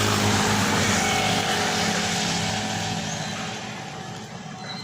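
Motor vehicle engine running with a steady low hum and road noise, fading away over the last couple of seconds.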